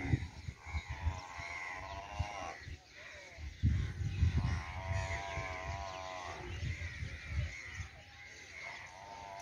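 Bleating livestock: three long, quavering bleats of about a second and a half each, over scattered small-bird chirps. A low rumble of wind on the microphone comes and goes.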